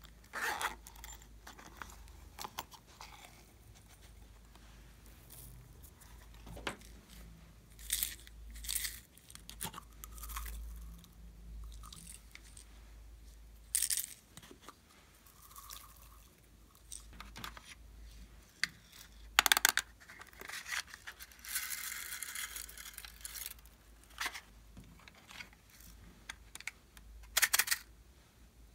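Hard plastic toys handled close up: scattered clicks, taps and clacks of plastic, the sharpest about two-thirds of the way through. It is followed by a couple of seconds of dense crackling.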